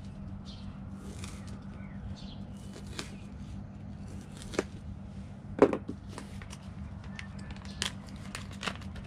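A knife cutting through dry, brittle freeze-dried chicken on a plastic cutting board: scattered crunches and knocks of the blade on the board, the loudest about five and a half seconds in, over a steady low hum. Near the end, a plastic zip bag crinkles as it is picked up and opened.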